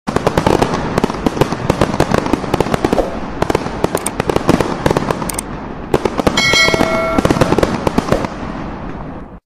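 Fireworks going off: a dense run of bangs and crackling, with a steady ringing tone for about a second and a half a little past the middle. The sound cuts off abruptly near the end.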